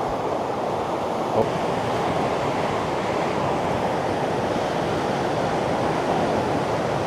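Fast, swollen floodwater of the Nam Khan river rushing past in a steady, unbroken noise.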